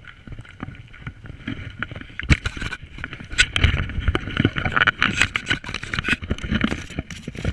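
Handling noise of a body-worn action camera being jostled: irregular knocks, scrapes and rustling close to the microphone, busier from about two seconds in, over a steady rushing noise.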